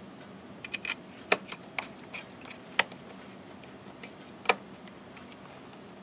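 Small metal clicks and taps of a screwdriver working on a hard drive's metal optical-bay caddy and its screws: a scatter of light clicks with three sharper clicks about a second and a half apart.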